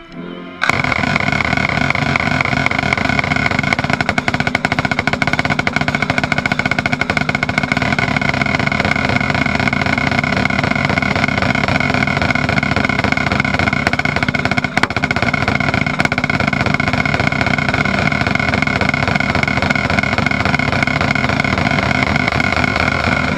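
Close-miked marching snare drum playing a continuous loud roll that starts abruptly, under a sustained band chord. It cuts off suddenly near the end.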